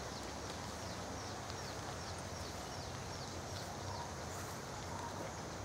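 Outdoor ambience: a steady hiss with a high, short falling chirp repeated about twice a second.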